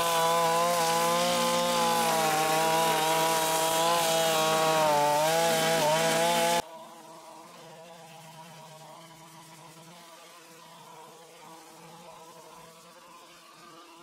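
Zenoah BCZ261 25.4 cc two-stroke brush cutter with a nylon cutter head running at working speed as it cuts grass, its pitch wavering slightly. About six and a half seconds in the sound drops suddenly to a much fainter, steadier engine hum.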